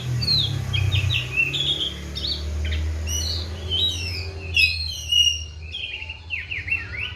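Oriental magpie-robin (kacer) singing a continuous run of quick, varied whistled notes and slurs, over a steady low hum in the background.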